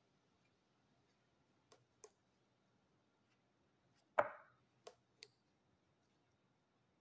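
Large glossy pages of a wallpaper sample book being handled and turned: a few light ticks and taps, with one louder page flop a little after four seconds in.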